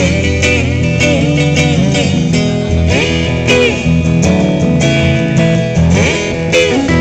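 Live band instrumental break: an electric guitar solo over acoustic guitar backing, with notes bending up and down in pitch.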